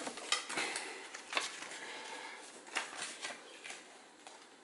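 Light taps and clicks of plastic Blu-ray cases and their cardboard slipcovers being handled on a table, a few scattered ticks over the first three seconds, then fading.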